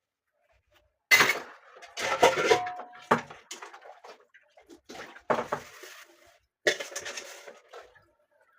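Dishes and pots clattering and knocking together in about five separate bursts, one with a brief ringing tone a couple of seconds in.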